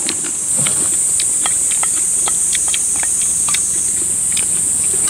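Steady high-pitched drone of a summer insect chorus, with scattered light clinks of spoons and chopsticks against stainless-steel bowls as people eat.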